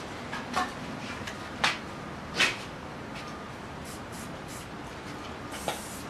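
Montana 94 aerosol spray can with a skinny cap, hissing in short bursts as paint is sprayed, the longest burst near the end.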